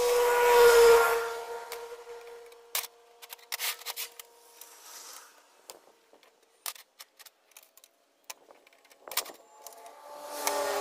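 Manual bar bender squealing as its lever forces a steel flat bar round the die to bend a tab, metal scraping on metal with a steady pitch. Then a run of light metallic clicks and clinks as the bar and bender are handled, and another squeal begins near the end.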